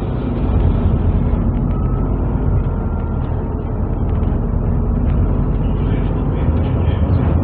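Cabin noise inside a MAZ-203 low-floor city bus under way: a steady low rumble of the engine and road noise.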